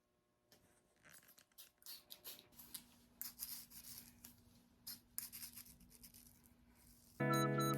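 Faint, scattered scratches and small clicks of hands working close to the microphone on a lace frontal wig. Background music comes back in near the end.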